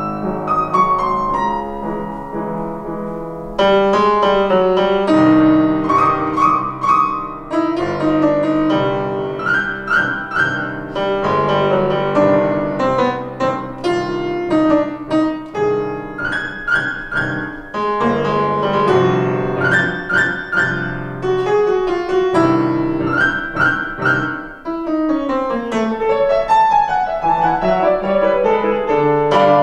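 Grand piano played four hands by two pianists: a classical duet in dense, shifting chords, softer for the first few seconds and then louder.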